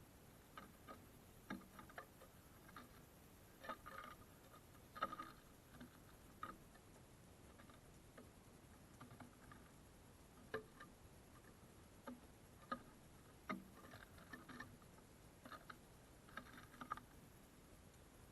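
Faint, irregular light taps and clicks of small birds pecking at seed on a wooden feeder, coming a few at a time in short clusters.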